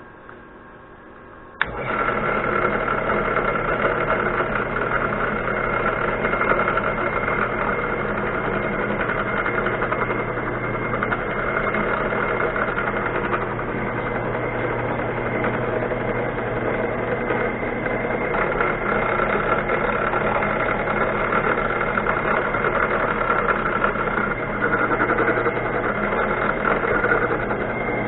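A power tool's electric motor switches on about two seconds in and runs steadily, with a constant whine.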